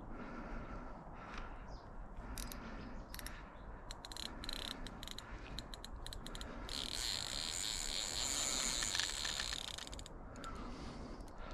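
Fishing reel's clutch giving line to a hooked carp: bursts of rapid clicking, then a continuous buzzing run from about seven to ten seconds in as the fish takes line.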